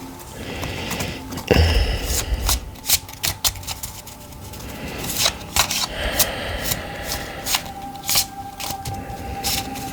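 Tarot cards being shuffled and handled: rapid clicks and short riffling rustles. A steady background tone sounds under them, growing clearer in the second half.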